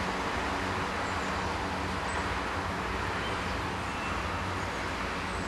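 Steady background noise of distant road traffic, a continuous even hum and rush with no single event standing out.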